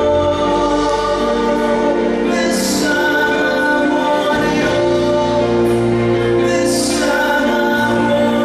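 A man singing into a handheld microphone over a recorded backing track, with held notes and a steady bass line; a bright hiss swells up briefly twice in the music.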